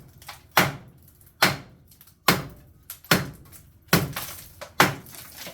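Hammer blows breaking out concrete, about six heavy strikes in a steady rhythm a little under a second apart, with a few lighter knocks between them.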